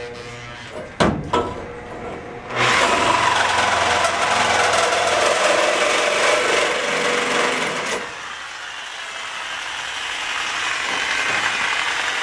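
DeWalt corded reciprocating saw cutting through rusted steel on a VW bus underbody, a steady rasping buzz that starts about two and a half seconds in and gets quieter after about eight seconds. A couple of sharp knocks come about a second in, as the blade is set against the metal.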